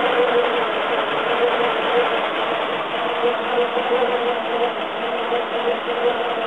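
Citroën GS 1220 cc air-cooled flat-four engine idling steadily, with an even note that neither rises nor falls.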